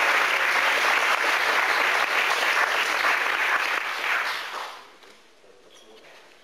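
Audience applauding steadily, then dying away about four and a half seconds in.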